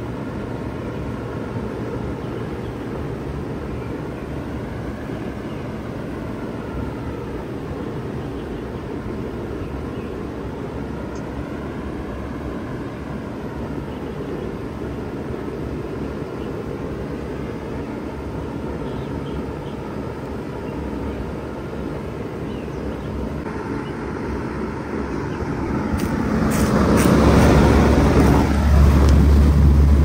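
1996 Bard 3-ton wall-mounted heat pump running steadily in cooling mode, a steady whoosh from its outdoor fan over the hum of the compressor. For the last few seconds it comes in louder and closer, the compressor's low hum strongest, with a few sharp clicks.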